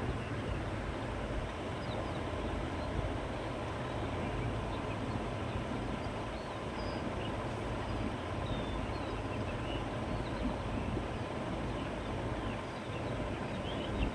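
Steady wind blowing over open countryside, a low, even rush with no let-up, with faint short bird chirps scattered through it.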